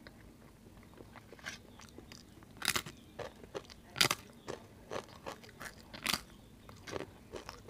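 Crisp papad (papadum) being bitten and chewed close to the microphone: a run of sharp crunches, the loudest about four seconds in, with lighter crackles between bites.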